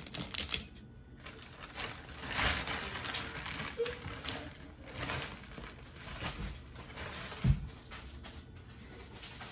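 Handling noises: gold-tone metal wire bangles clicking together as they are slipped onto a wrist, then rustling and light knocks of packaging being handled, with one dull thump about seven and a half seconds in.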